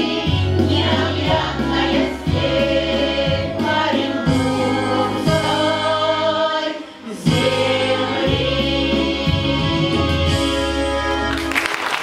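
Women's folk vocal ensemble singing a Russian song together over a low accompaniment, with a short break about seven seconds in. The song ends near the end and applause starts.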